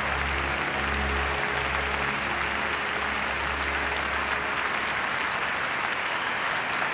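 Audience applauding steadily, over the last held low notes of the skating music, which die away about halfway through.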